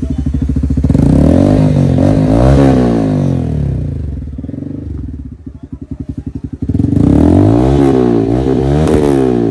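Bajaj Pulsar N160's single-cylinder engine revved twice through dual side-mounted Akrapovic slip-on silencers with the dB killers removed. The revs rise and fall, dropping back to a pulsing idle between the two bursts.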